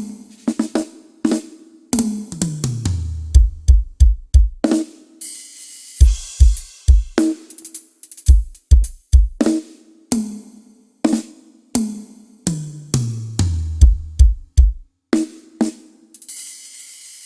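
Acoustic drum kit played for a sound check: fills that run down the toms from high to low, clusters of quick bass-drum strokes, snare hits, and a cymbal crash about five seconds in and again near the end.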